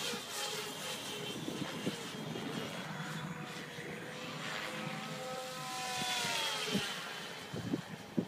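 Compass Warp 360 radio-controlled helicopter in flight overhead: a steady whine from its rotor and drivetrain that sweeps up and then back down in pitch a little past the middle as it manoeuvres.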